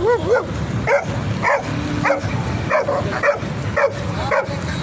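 Repeated short dog barks, about two a second, with a quick run of high yips at the start.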